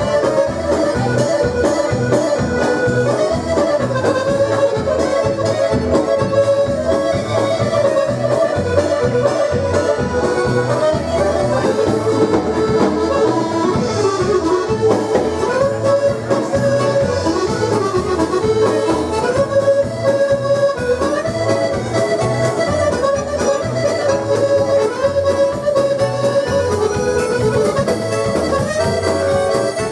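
Two button accordions playing a lively dance tune together over a steady bass beat, amplified through the hall's PA.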